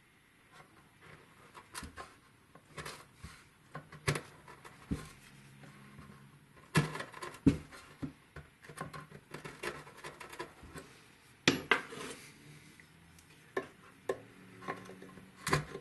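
A narrow steel chisel worked by hand, paring and levering wood out from between drilled holes to cut a mortise slot: scattered sharp clicks, taps and short scrapes at irregular times, the loudest a little after halfway.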